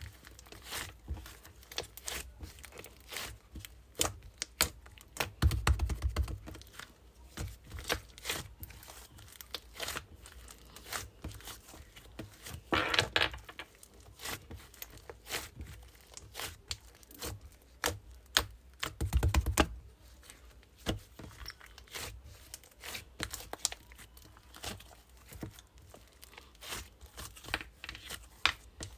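Crisp, flaky crunch croissant pastry being torn and crunched: dense, irregular crackling throughout, with heavier low thumps about six seconds in and again near twenty seconds.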